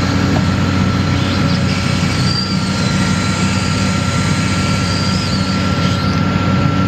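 Doosan DX300LC excavator's diesel engine and hydraulics running steadily under load as the arm presses down against the ground, with a steady high whine over the engine.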